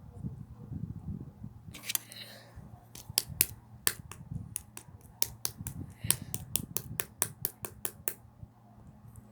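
Slime being played with by hand, giving a run of sharp popping clicks, about four a second, that start about two seconds in and stop about a second before the end.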